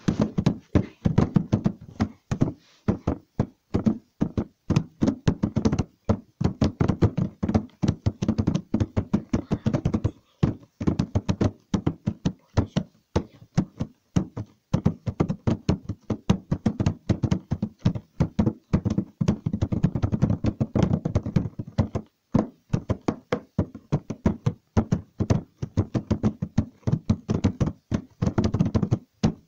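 Dense, irregular knocking and tapping, several strikes a second, broken by a few short pauses.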